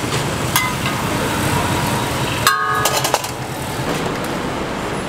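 A metal spatula clinks twice against a flat steel roti griddle, lightly about half a second in and sharply about two and a half seconds in. Each clink rings briefly, over steady street traffic noise.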